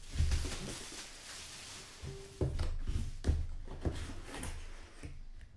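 A cardboard box being handled and opened on a table: rustling at first, then a brief squeak and several soft knocks of cardboard as the box is moved and its lid worked open.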